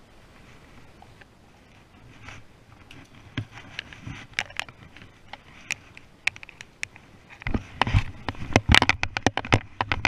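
Footsteps and rustling through tall dry grass and brush, becoming dense and loud in the last two to three seconds, after scattered light clicks and taps.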